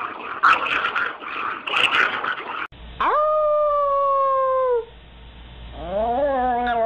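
A Chihuahua howling: a wavering howl that rises and falls in pitch, starting about six seconds in. Before it comes one long steady held note that sags in pitch as it ends, and before that a rough, noisy stretch that cuts off suddenly at the cut, a little under three seconds in.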